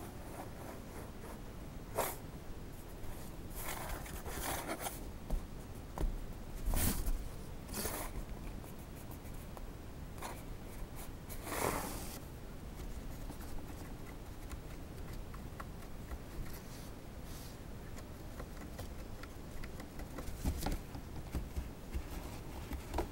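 Cardboard box scraping and rustling in short, scattered bursts, a handful of times with quiet stretches between, as the box is moved against.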